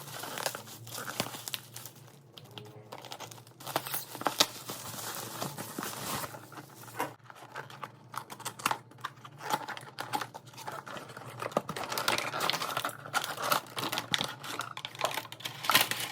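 Parcel packaging being handled and opened: plastic and paper wrapping crinkling and tearing, with irregular small clicks and knocks throughout.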